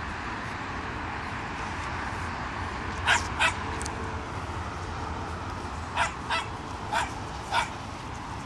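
Puppy giving short, high play-barks while wrestling with another puppy: six yips in all, two quick ones about three seconds in and four more near the end.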